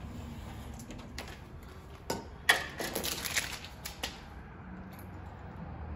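Light clicks and scrapes of a utility knife and metal straightedge working stacked window tint film against glass, with a cluster of sharper clicks and crackling about two and a half to four seconds in.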